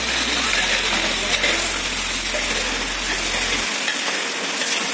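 Meat and onions sizzling and frying in hot oil in a large plov cauldron (kazan), stirred with a long metal skimmer.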